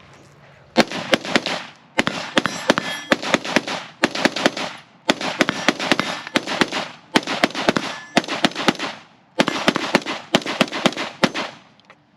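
Springfield Armory Hellion 5.56 semi-automatic bullpup rifle firing .223 rounds in quick strings, many sharp cracks over about ten seconds with brief pauses between the strings.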